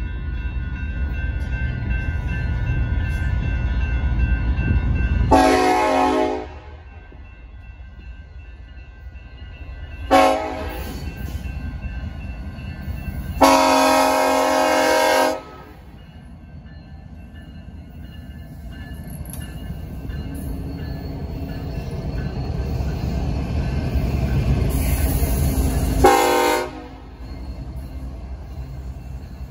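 Union Pacific freight train's diesel locomotives rumbling past, with the locomotive air horn sounding four times: a blast of about a second, a short toot, a longer blast of about two seconds, and another short blast near the end.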